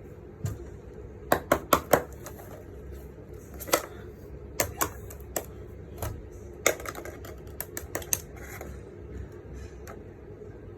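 Small plastic fidget toys being handled, giving irregular sharp clicks and taps. A quick run of four comes about a second in, and a busier flurry follows in the second half.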